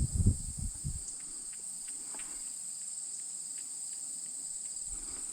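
Steady high-pitched chorus of crickets, with a few low thumps in the first second.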